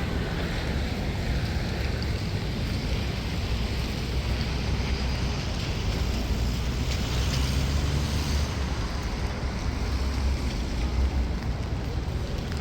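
Wind buffeting the microphone, a steady low rumble over a hiss of outdoor street noise.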